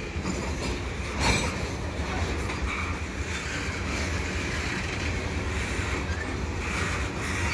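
Freight train's tank cars rolling past: a steady rumble of steel wheels on rail, with one louder clack about a second in.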